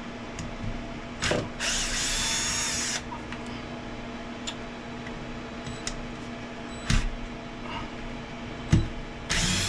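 Small electric driver spinning in two short bursts, about a second and a half in and again near the end, backing out screws set with thread locker on an RC car's transmission. A few light knocks of small parts in between.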